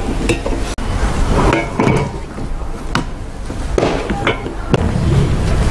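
Hard urethane rubber blocks being handled, knocked together and set down on a table and a steel stand plate, making a few separate knocks and clinks.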